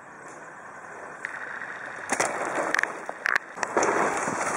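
A dirt-jump bike's tyres rolling over packed dirt, growing louder as the rider comes close, with a few sharp knocks and clicks from the bike in the middle.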